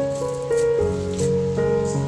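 Instrumental background music: sustained, held chords whose notes change every half second or so, with faint light hissy accents over them.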